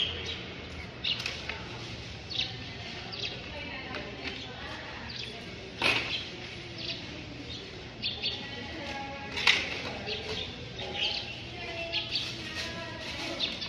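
Small birds chirping in short, repeated high calls, with faint voices in the background and two sharp knocks, about six and nine seconds in.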